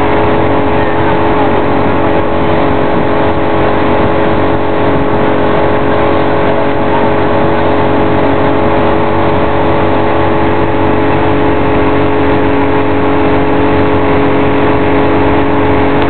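Motorboat engine running steadily at towing speed, a constant hum with rushing wind and water noise over it.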